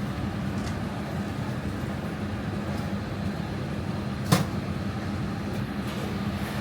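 A steady low mechanical drone with a constant hum, broken once by a single sharp click a little past four seconds in.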